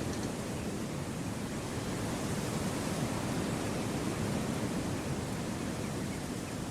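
Wind blowing through forest trees: a steady, even rushing noise with no distinct events.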